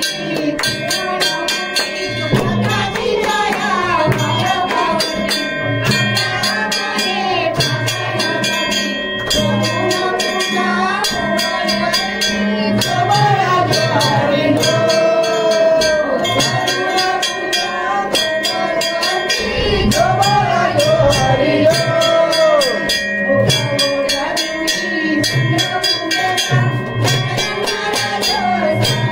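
Music: a singing voice over drums and jingling percussion that keep a steady beat.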